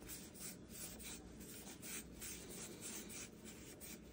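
Stack of Topps 206 trading cards being flipped through by hand, the card stock sliding and rubbing against itself in a run of soft swishes, about three a second.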